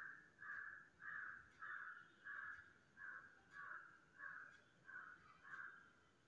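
A bird calling faintly in an even series, about ten calls a little under two a second, each call short and rough.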